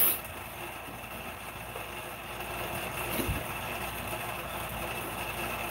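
Steady background hum and hiss of room noise, with one soft thump about three seconds in.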